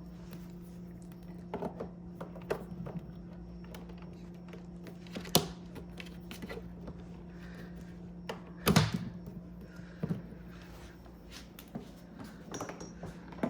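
Scattered sharp clicks and knocks of power cords and plugs being handled, unplugged and plugged in, the two loudest about five and nine seconds in. A steady low electrical hum runs underneath.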